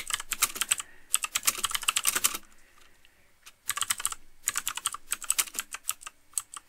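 Typing on a computer keyboard: a quick run of keystrokes, a pause of about a second, then another run that keeps going near the end.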